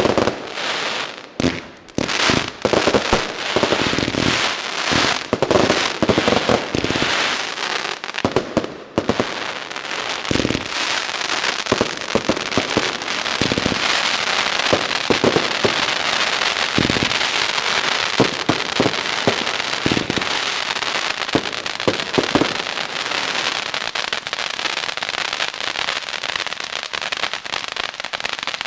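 Firework cakes firing: a rapid series of shots and bangs, then from about ten seconds in a dense, continuous crackling of crackling stars, with occasional louder reports.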